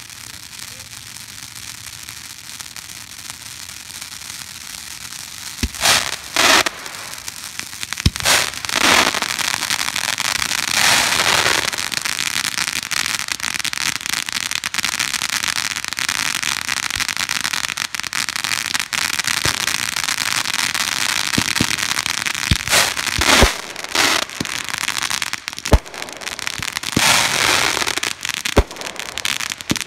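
Firework fountains spraying sparks with a steady hiss that swells louder after about six seconds, broken by scattered sharp pops and crackles. Near the end a shot fires upward from among them.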